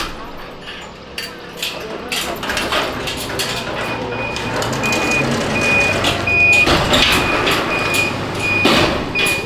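A vehicle's reversing alarm beeping over and over at one high pitch, starting about halfway in, over a low engine hum and scattered knocks.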